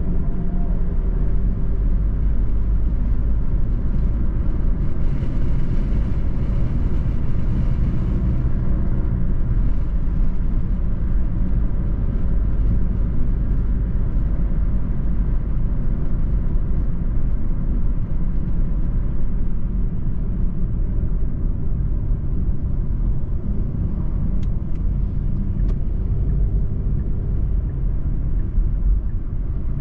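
Car driving at steady speed, heard from inside the cabin: a continuous low road rumble from tyres and engine. A lighter hiss swells briefly a few seconds in.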